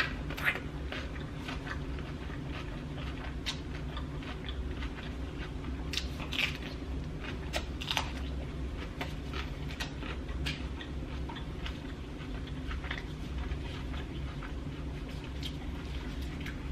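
A person eating a curry seafood boil with her hands: biting and chewing, with scattered sharp clicks and smacks over a steady low hum.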